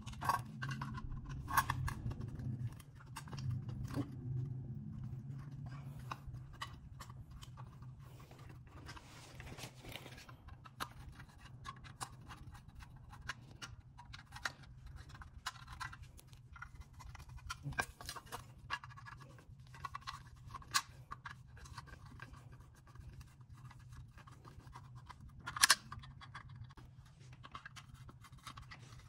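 Screwdriver working the screws out of a rusty metal headlight bucket, with scattered small clicks and scrapes of metal and one sharper click near the end, over a steady low hum.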